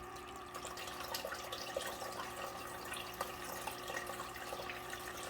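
Water trickling and splashing steadily down a small indoor tabletop waterfall fountain, just switched on and running, with small drips throughout.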